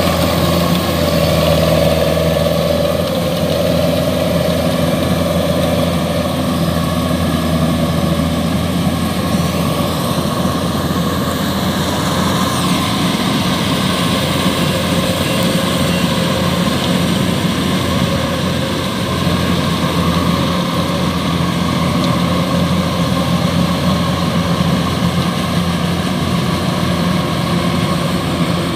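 Kubota DC-105X combine harvester's diesel engine running steadily under load while it harvests rice.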